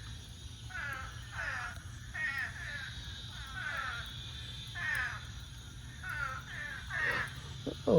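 Small frogs calling in a post-rain chorus: repeated short, raspy calls that fall in pitch, often two in quick succession, over a steady low hum.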